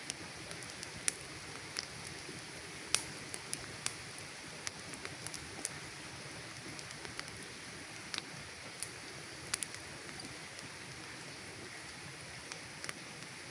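Campfire crackling: irregular sharp pops and snaps over a steady hiss, fewer in the last few seconds.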